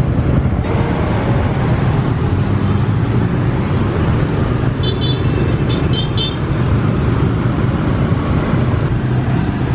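Dense rush-hour motorbike and scooter traffic streaming past, engines running in a steady loud wash. A horn beeps several short times in quick succession around the middle.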